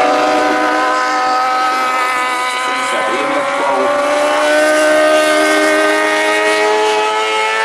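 Classic superbike racing motorcycle engine running hard on the circuit, a loud steady engine tone whose pitch drifts slowly up and down.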